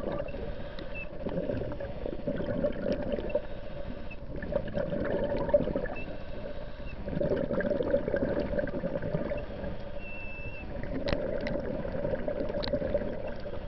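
Muffled underwater water noise picked up by an underwater camera, a steady low rush that swells and eases every few seconds as the camera moves through the water. Now and then there is a faint short high chirp or a click.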